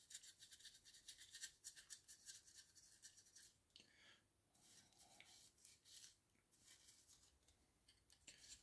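Faint, rapid scratchy strokes of a stiff dry brush scrubbing over a plastic miniature, with a short lull about four seconds in.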